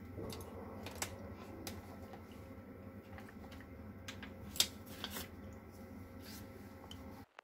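A laptop being opened and its keys and touchpad tapped and clicked: scattered light clicks, the sharpest about four and a half seconds in, over a faint steady hum.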